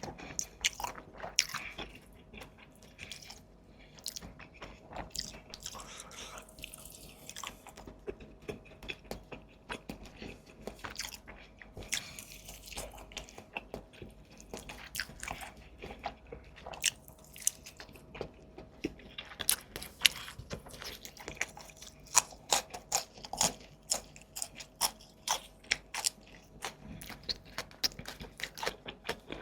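Close-miked eating: a person biting and chewing food with many sharp, wet crunchy clicks, coming thicker and louder in the second half. A faint steady hum runs underneath.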